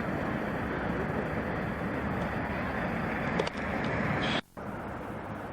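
Train running past on the railway line, a steady rushing rumble; it breaks off abruptly about four and a half seconds in and comes back a little quieter.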